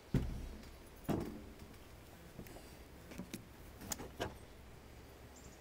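Handling noise: two dull thumps, then several light clicks and taps, as steel bamboo-rod planing forms are moved into place on a table.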